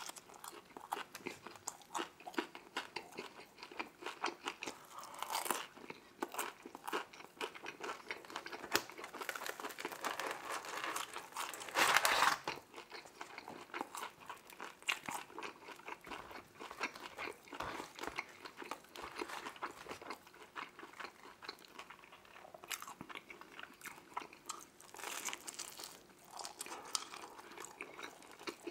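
Close-miked eating of deep dish pizza: biting and chewing with many small crunches, clicks and wet mouth sounds, and one louder burst of noise about twelve seconds in.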